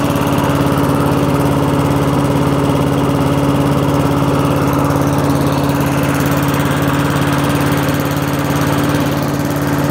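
Honda four-stroke lawn mower engine running steadily at a constant speed.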